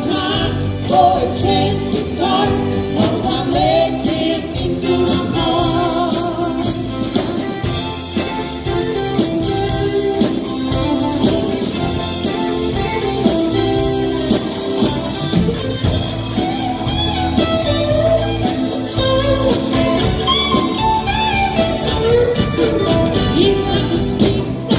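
Live band playing through a PA: women singing lead over electric guitar and keyboard, with a steady beat.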